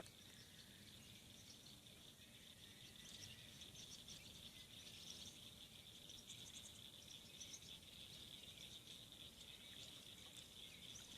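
Faint outdoor ambience: a steady high-pitched insect chorus with scattered short chirps over it.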